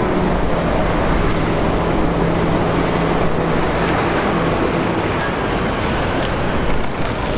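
City street traffic noise, with a steady engine hum that fades out about four and a half seconds in.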